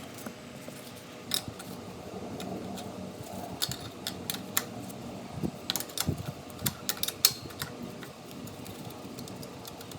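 Box wrench working loose the bolts of a Kohler lawnmower engine's muffler heat shield: scattered light metal clicks and clinks, several in quick succession just past the middle, over a low steady background hum.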